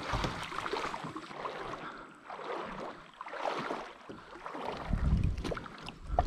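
Water splashing and trickling around a kayak's hull in a shallow river, with a couple of low bumps near the end.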